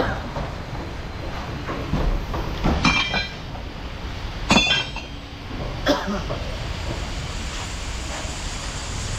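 A steady low rumble with three sharp metallic clinks, about three, four and a half and six seconds in; the first two ring on briefly with a high metallic ring, like steel parts knocking together.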